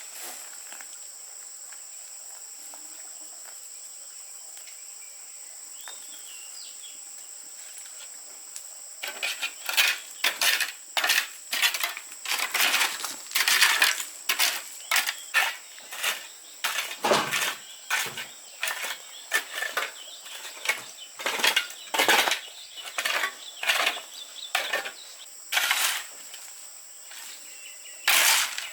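Sharp, irregular clinks and knocks of metal tools striking stone, about one or two a second, starting about nine seconds in. Before that there is only a steady high insect drone.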